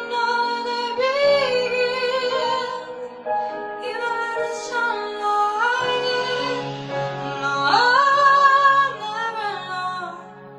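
A girl sings a slow pop ballad into a microphone over a soft instrumental backing, holding notes that bend up and down in pitch. Her voice falls away just before the end, leaving the accompaniment.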